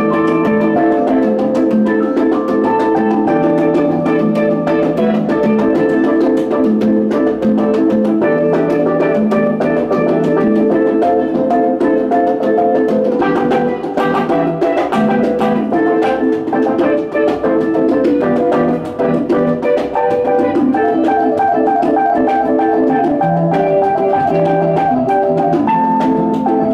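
A small band playing instrumental music live: keyboard chords and electric guitar over hand-played conga drums, at a steady loud level.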